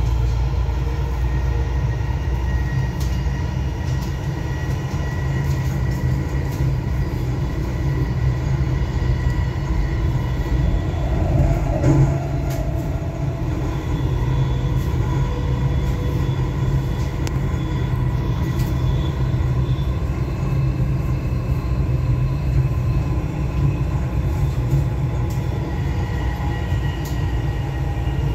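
Dubai Metro Green Line train running along the track, heard from inside the cabin: a steady low rumble with a faint steady whine above it, and one brief knock about twelve seconds in.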